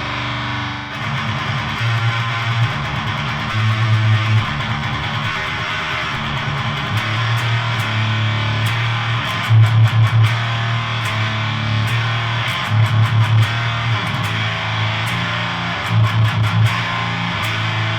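Electric guitar through a Siren Pedals Eligos HM-2-style heavy metal distortion pedal and an all-tube amp: a saturated 'chainsaw' tone. A heavy low rhythm riff begins about a second in, with sustained low chugs broken by short bursts of fast picking.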